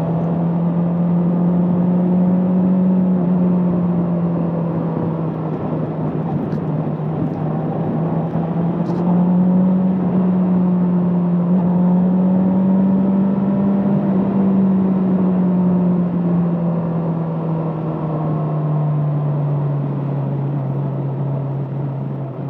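Bristol Venturi 500 motorcycle engine running steadily under way, its note easing up and down with small throttle changes and dropping lower near the end, over constant wind and road rush.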